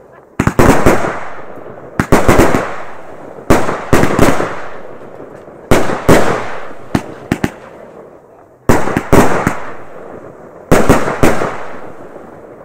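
Aerial fireworks being set off in steady succession: about seven rounds of sharp bangs, one every one and a half to two seconds. Each round is a short cluster of cracks that rings out in a fading echo.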